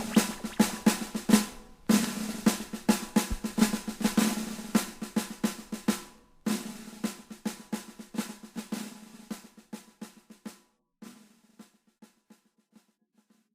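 Drum outro of a song: quick runs of snare drum hits, each run dying away and starting again loudly twice, then thinning to a few scattered hits and stopping.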